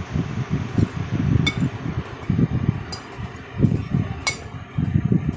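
A metal spoon clinks against a ceramic plate several times, with short sharp ringing strikes, as chopped garlic is scraped off into the mixing tub. An uneven low rumble runs underneath.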